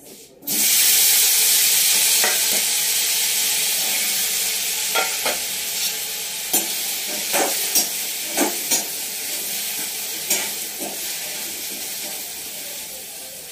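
Food is tipped into hot oil in a kadhai and sizzles at once, loud at first and then slowly dying down as it fries. A spoon clicks and scrapes against the pan several times while stirring.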